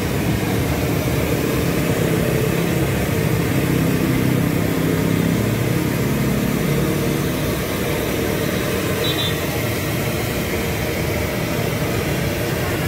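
Steady street traffic of motorbikes and cars passing close by, a continuous low rumble with one engine's hum swelling and fading in the first half.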